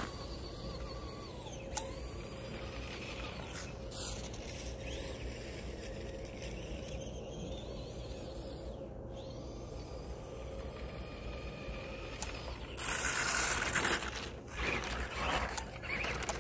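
Motor of a radio-controlled monster truck whining, its pitch sweeping up and down as it speeds up and slows. About thirteen seconds in a louder rushing noise lasts about a second, and choppier bursts follow near the end.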